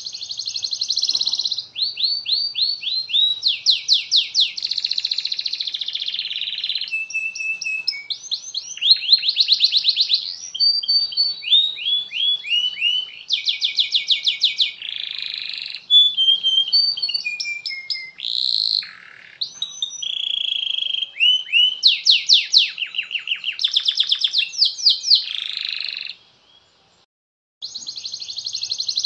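Domestic canary singing a long, continuous song of fast trills and rolls with sliding notes. It breaks off into silence for about a second near the end, then starts again.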